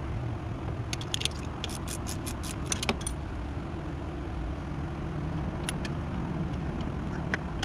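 Light metallic clicks and rattles as the reverse-gear actuator and its bracket are handled in the engine bay: a quick run of clicks about one to three seconds in, then a couple more near the end. A steady low hum runs underneath.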